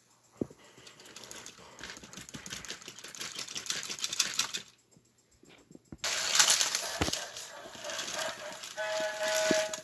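Battery-powered toy train engines pushing against each other on plastic track, their motors and gears giving a fast, even clicking rattle. The clicking stops about halfway through, then a louder, rougher mechanical noise starts as one engine rears up. Near the end a steady electronic tone comes in.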